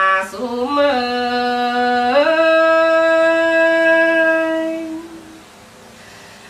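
A woman singing a Tai folk song (hát Thái) unaccompanied, drawing out a wordless vowel. The note rises in pitch about two seconds in, is held for nearly three seconds, then fades away into a short pause near the end.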